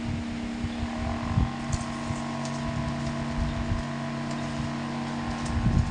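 Homemade table fan's 12 V DC motor running with a steady hum over an uneven low rumble; about a second in, a higher whine joins in.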